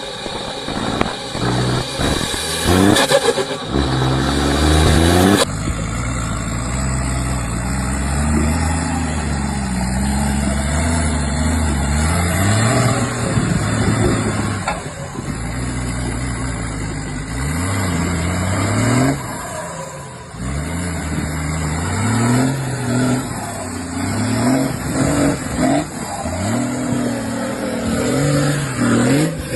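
Off-road 4x4 engines revving hard under load, the pitch climbing and dropping again and again as the throttle is worked; the sound changes abruptly about five seconds in.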